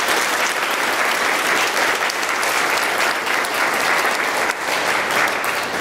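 Audience applauding in a large hall: steady clapping from many hands, tapering off near the end.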